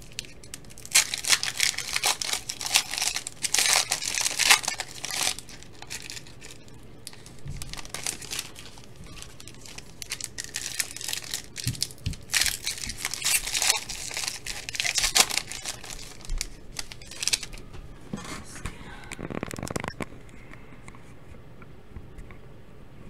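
Trading card pack wrappers being torn open and crinkled, in two long spells of crackling with a few soft knocks between them.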